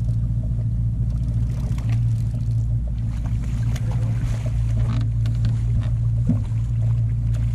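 Steady low hum of a motor running on a fishing boat, with faint scattered clicks and rustles from a rod and reel being handled.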